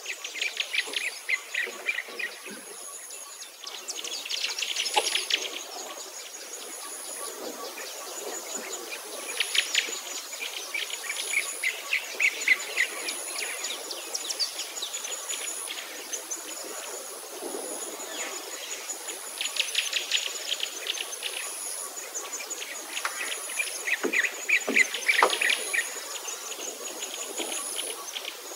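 Backyard birdsong, with repeated rapid trills and chirps coming and going, over a thin, high insect call that pulses about once a second.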